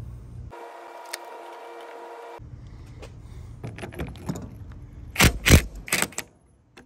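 Cordless impact wrench run in short bursts on a tie rod end nut, with metal clatter of the socket and parts; the loudest bursts come about five seconds in. Before that there are a couple of seconds of a steady hum.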